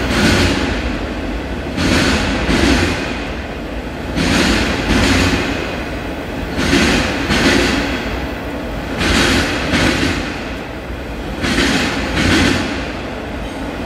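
Freight train of enclosed autorack cars rolling past with a steady rumble. The wheels clack in pairs, the pairs repeating about every two and a half seconds as each car's trucks pass.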